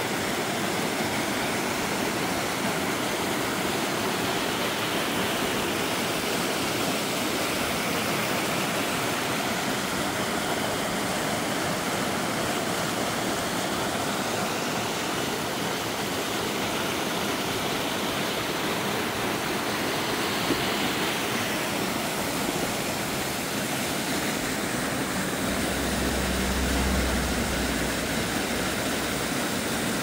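Rocky mountain stream rushing over a small cascade, a steady hiss of fast water, with a brief low rumble about four seconds before the end.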